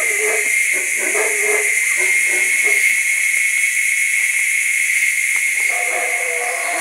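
A monkey in the treetops calling in a rapid series, about four calls a second, dying away about two and a half seconds in, with a longer held call near the end. Under it runs a steady high-pitched insect drone.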